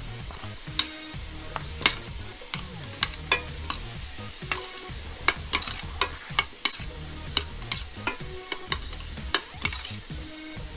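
Chopped mushrooms and onion being stirred in a stainless steel skillet, over a light sizzle. A utensil scrapes and clicks against the pan many times at an uneven pace.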